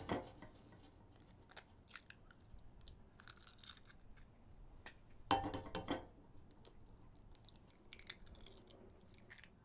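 Eggs cracked one after another on the rim of a ceramic bowl: a sharp crack at the start, shell crunching and small clicks as the shells are pulled apart, and a louder crack about five seconds in.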